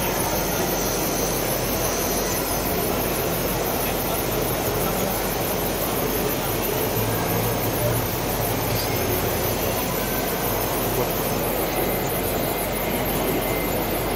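Steady din of a busy exhibition hall, with the murmur of crowd voices in it.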